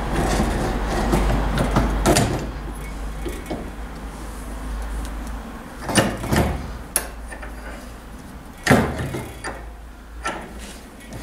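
Metal knocks and scraping as a four-carburettor bank is turned over and clamped in a bench vise, with the vise's sliding handle bar clanking; sharp knocks at about 2, 6, 7 and 9 seconds in.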